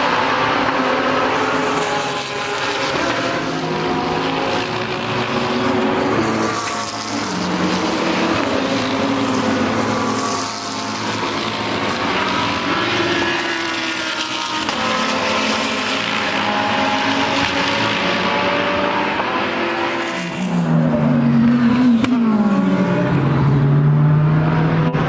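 GT3 race cars at racing speed, led by the Audi R8 LMS EVO II GT3's V10: engine notes rising and falling through gear changes as the cars pass. About twenty seconds in, a car comes closer and louder, its pitch climbing and then dropping.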